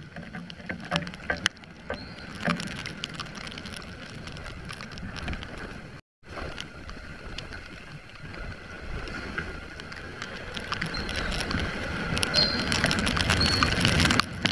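Heavy rain and wind heard from a camera on a moving motorcycle: many sharp raindrop ticks on the camera over a steady wash of water spray from the wet road. The sound drops out for a moment about six seconds in and grows louder toward the end.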